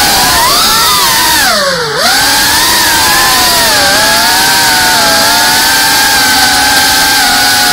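Brushless motors and propellers of a GEPRC CineLog35 cinewhoop FPV drone whining in flight, the pitch rising and falling with the throttle. Just before two seconds in, the throttle drops briefly and the pitch sinks, then it climbs back and holds fairly steady.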